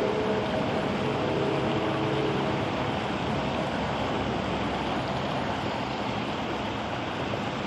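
Water pouring over a concrete spillway, a steady, even rush. A faint hum fades out in the first few seconds.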